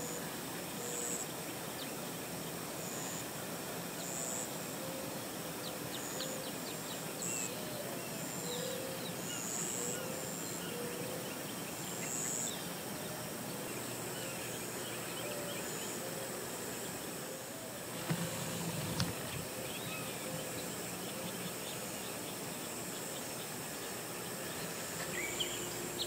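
Outdoor ambience of insects and birds: short high insect chirps repeating about once a second over a steady hiss, with scattered bird chirps. A soft low bump about two-thirds of the way through.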